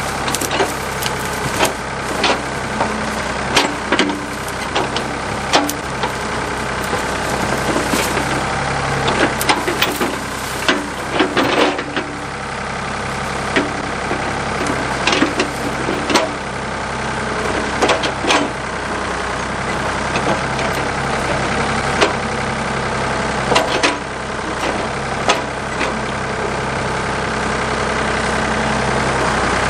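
Backhoe engine running steadily while the machine digs out stumps, with scattered sharp knocks and clanks from the digging.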